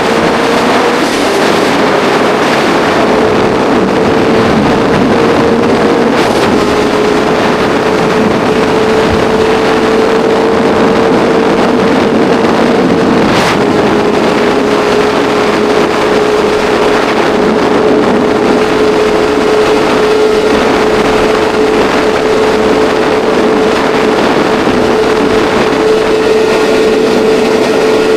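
A vehicle's engine held at high, nearly steady revs under a loud rushing noise. Its single steady note creeps slowly higher, with two slight dips in pitch about 6 and 13 seconds in.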